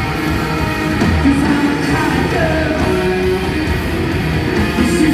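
Rock band playing a loud live noise jam with guitars, heard from the stands of a large arena.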